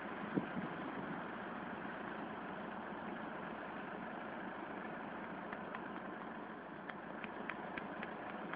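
Renault Master van's engine idling steadily while the van stands with its beacons on, with a few faint ticks near the end.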